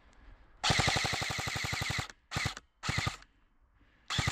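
Airsoft gun firing full-auto bursts at roughly fifteen shots a second. A burst of about a second and a half comes first, then two short bursts, then another burst begins near the end.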